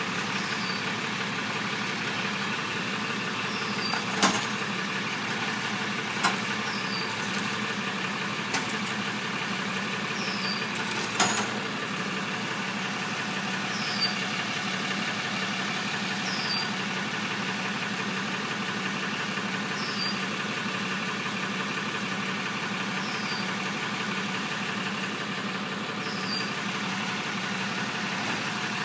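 Tow truck's engine idling steadily while the tow gear is hooked up, with a few sharp knocks, the loudest about 4 and 11 seconds in. A faint short high chirp repeats about every three seconds.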